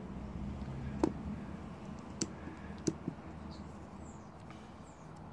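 About four light clicks and taps of cardboard-and-plastic coin holders being set down and picked up on a felt board, the loudest about a second in, over a steady low background.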